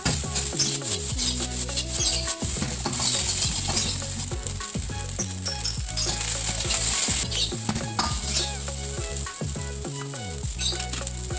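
Food sizzling in a hot pan while a spatula stirs and scrapes it, with many quick clicks and scrapes of metal on the pan over a steady frying hiss.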